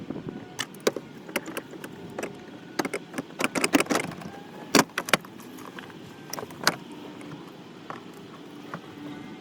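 Irregular sharp clicks and knocks of hand tools and hard plastic interior trim being worked on inside a minivan. They come in a quick cluster about three to four seconds in, with one loudest knock just before the five-second mark.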